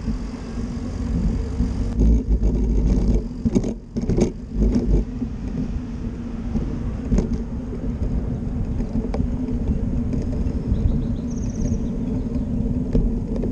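Steady rumble and tyre noise of a bicycle rolling over pavement, picked up through the handlebar-mounted camera. A few knocks from bumps in the pavement come about two to five seconds in.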